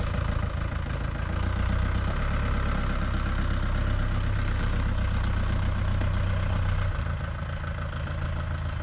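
Vehicle engine running at low revs while the vehicle manoeuvres at low speed. It picks up a little about a second and a half in and eases off again about seven seconds in.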